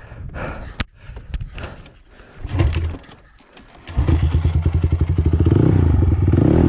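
Honda TRX450R quad's single-cylinder four-stroke engine catching abruptly about four seconds in and running with a rapid, even beat. Before it comes a scatter of clicks, knocks and scrapes.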